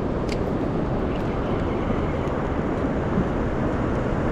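Steady wind buffeting the microphone, a continuous rushing noise.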